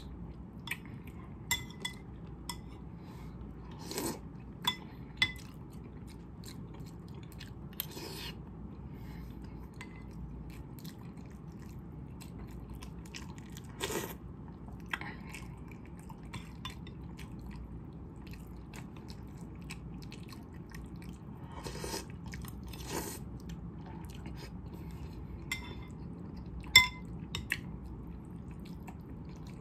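Close-up eating sounds of instant noodles: chewing, with a few longer slurps of noodles off a spoon, and many short clinks of a metal spoon against a ceramic bowl. A sharp clink near the end is the loudest.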